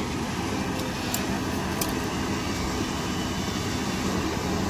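Caterpillar 323D tracked excavator's diesel engine running steadily as the machine works, with a few faint sharp clicks in the first two seconds.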